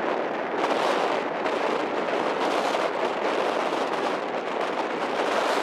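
Strong gusty wind buffeting the microphone: a dense, rough rushing noise with no clear engine tone.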